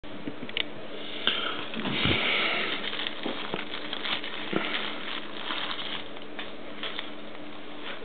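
Thin clear plastic wrapping crinkling and rustling as a small key-fob remote is worked free of it, with a few small sharp clicks.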